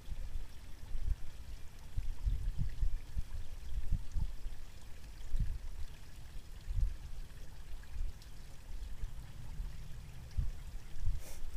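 Wind buffeting the microphone: an irregular low rumble that swells and drops in gusts.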